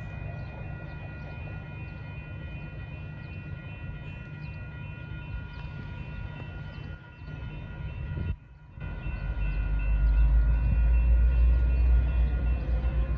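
Railroad grade-crossing bells ringing steadily. After a brief gap, the deep rumble of an approaching Metra commuter train comes in and grows louder.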